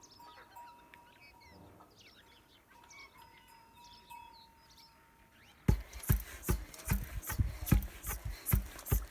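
Faint birds chirping over a steady thin hum. About five and a half seconds in, a run of loud, rhythmic thuds begins abruptly, two or three a second.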